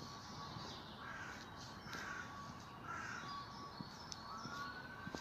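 Crows cawing, three harsh caws about a second apart.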